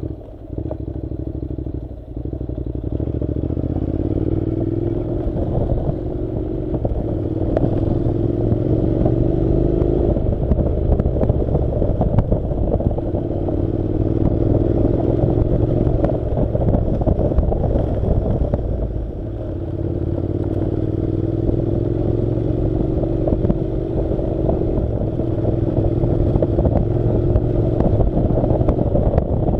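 Honda NC700's parallel-twin engine riding a dirt road, its pitch climbing in several stretches and dropping back between them as the throttle is eased or gears change, over many small knocks.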